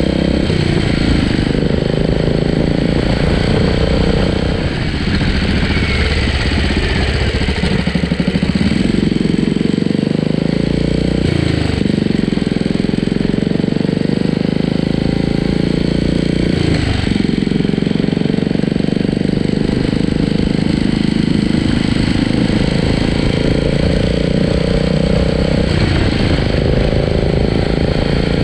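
Royal Enfield Classic 500's single-cylinder engine, fitted with a 535cc big-bore kit and an aftermarket exhaust, running at low road speed, its pitch rising and falling several times.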